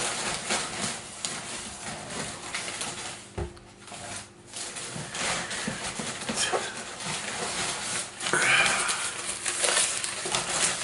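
Paper packing material rustling and crinkling as hands rummage through a box, with irregular crackles throughout and a louder stretch of rustling about eight seconds in.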